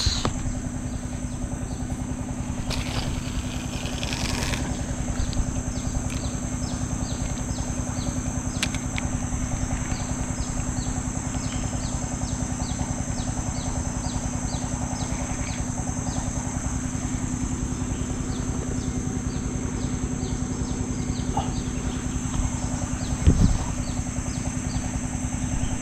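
Tropical riverbank ambience: a steady high insect drone with short chirps repeating about twice a second, over a steady low hum. There is a brief rustle early on and a soft knock near the end.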